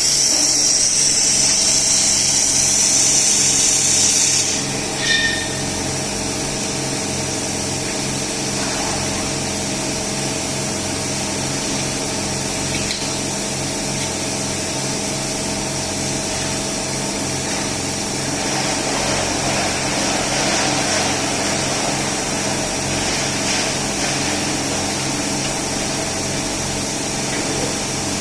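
A 3000 W robotic laser welding machine running, with a steady mechanical hum throughout. A strong high hiss stops sharply about four and a half seconds in, followed at once by a short beep.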